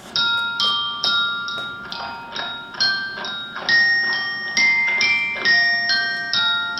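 Tuned mallet percussion playing a melody at a steady pulse, about two struck notes a second. The notes ring on, several sounding together.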